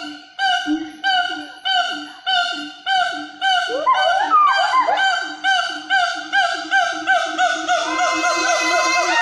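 Loud honking animal calls, one note repeated about twice a second, quickening into a faster run in the second half. A second caller's gliding notes join about four seconds in, and the calls pile up near the end.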